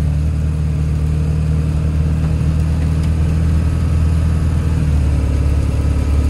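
Ford 7.3L Power Stroke turbo diesel V8 running steadily, heard from inside the truck's cab.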